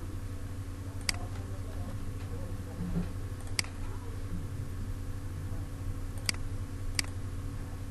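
Four single computer mouse clicks, the last two close together, over a steady low hum.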